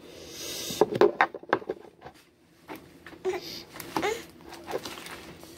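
A baby's hands knocking and rubbing on the phone and high-chair tray, a cluster of sharp knocks about a second in, followed by a few short baby vocal sounds.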